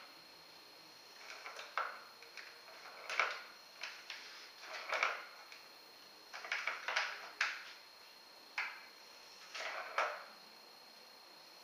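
Cat batting a ball around a circular plastic track toy: irregular clatters and knocks of the ball and paw against the plastic track, in short bursts about a second apart.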